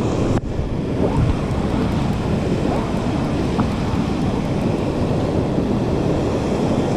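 Steady rush of ocean surf breaking and washing over the shallows, with wind rumbling on the microphone.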